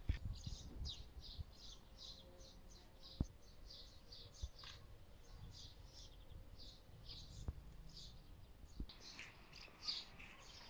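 Small birds chirping, with short high chirps coming several times a second. A low rumble runs underneath, and there are two sharp clicks, about three seconds in and again past the middle.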